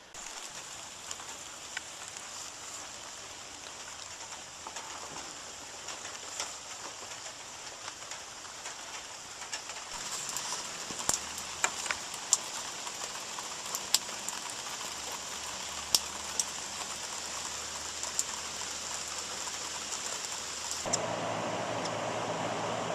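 Rain falling steadily, with scattered sharp drips ticking through the hiss. Near the end the sound steps up to a louder, lower rushing.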